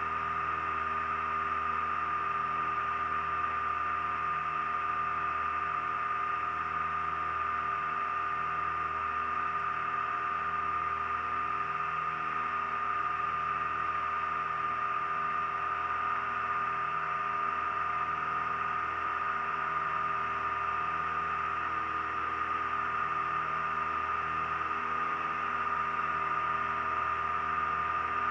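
The Piper Turbo Aztec's twin turbocharged piston engines and propellers droning steadily, heard inside the cabin, with a steady high whine over the low drone.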